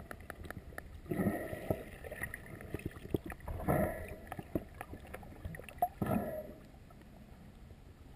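Water noise picked up by a submerged camera, swelling three times about two and a half seconds apart, with scattered faint clicks.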